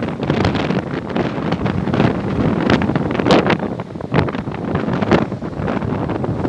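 Strong wind buffeting the microphone in uneven gusts, a loud rumbling rush with sharper surges every second or so.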